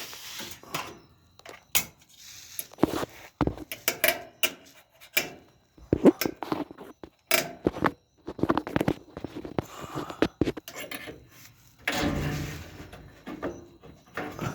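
Irregular clicks, clanks and knocks of metal dryer parts being handled as a spring is hooked onto its clips, with a longer scraping rub about twelve seconds in.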